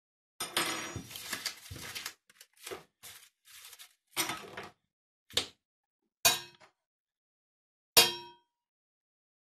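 Rustling and light clicks and taps as items are moved about on a glass cooktop. About eight seconds in, a thin stick strikes an empty stainless steel pot once and it rings out.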